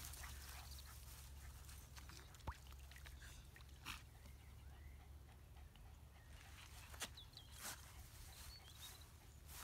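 Near silence with a low steady rumble and a few soft clicks, and a faint high chirp near the end.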